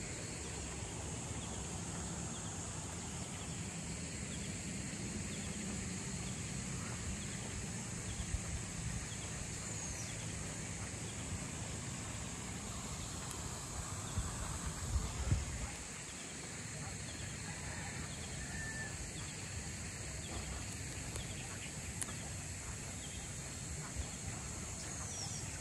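Outdoor rural ambience: a steady high hiss with a few short bird chirps. A cluster of low thumps and knocks comes about halfway through.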